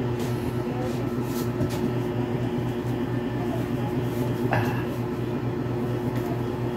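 Steady electric motor hum filling a small room, with a brief soft rustle about four and a half seconds in.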